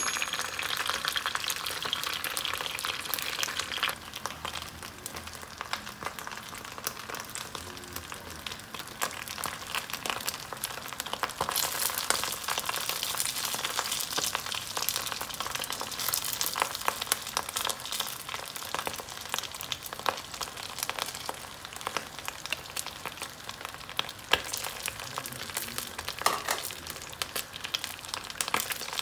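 Food frying in hot oil, a steady sizzle with many small crackling pops throughout, a little louder in the first few seconds and again about a third of the way in.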